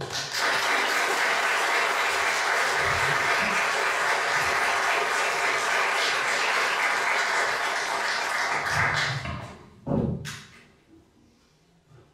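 Audience applauding for about nine seconds, then dying away, followed by a single thump about ten seconds in.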